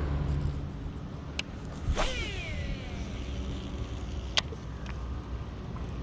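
A baitcasting reel on a cast: a sharp click about two seconds in, then the spool's whine falling in pitch as it spins down over about a second. A few single sharp reel clicks come before and after, over a steady low rumble.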